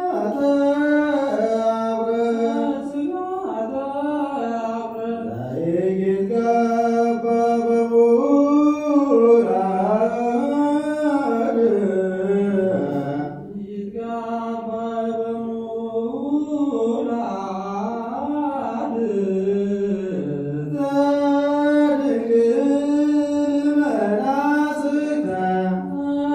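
Ethiopian Orthodox liturgical chanting in Ge'ez: long melismatic phrases that slide and waver between pitches, growing softer for a moment about halfway through before rising again.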